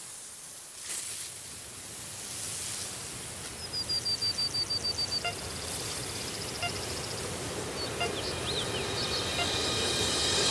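Outdoor ambience: a steady low rush, with a quick run of about a dozen high notes around four seconds in and a few short high chirps a few seconds later.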